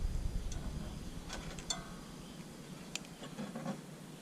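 A few short, sharp clicks as a new carburetor fuel shutoff solenoid is powered from a battery through test leads, its plunger snapping in: the solenoid works.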